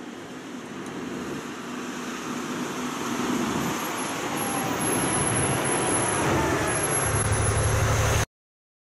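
Volvo R100 rigid dump truck driving toward and past close by, its engine running and growing steadily louder as it nears, then the sound cuts off suddenly about eight seconds in.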